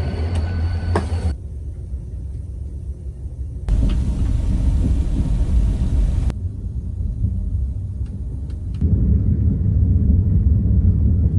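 Low rumble of a moving vehicle, in short clips that cut abruptly every few seconds.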